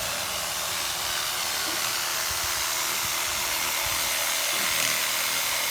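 Chainsaw running steadily as it cuts dry branches, a continuous even noise with no breaks.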